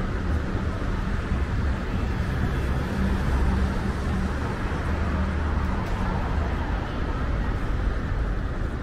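Steady city street ambience: a continuous low drone of road traffic with no single event standing out.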